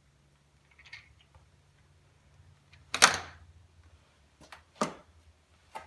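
Metal hand tools and parts handled on a workbench: a few scattered clicks and clinks, the loudest a sharp clank about three seconds in.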